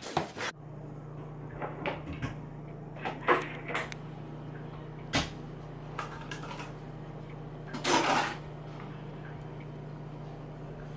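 Kitchen handling sounds: a few scattered knocks and clicks, like cupboards and utensils being moved, and a half-second noisy rustle about eight seconds in. Under them a steady low hum starts just after the beginning.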